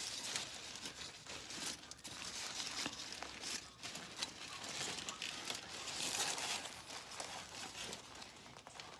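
Aluminium foil crinkling and crackling as it is pulled open and unwrapped from around a sandwich by hand.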